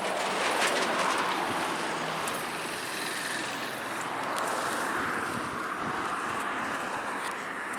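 Highway traffic: cars and trucks passing close by in a steady stream, the tyre and engine noise swelling and fading as each vehicle goes past.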